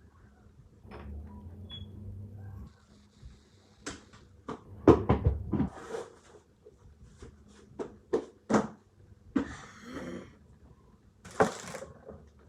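Cupboard doors and drawers being opened and shut while things inside are moved around: a string of knocks and clatter, the loudest about five seconds in.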